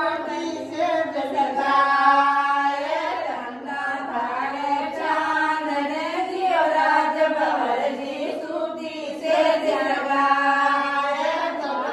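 A group of women singing together, a slow song of long held, gliding notes.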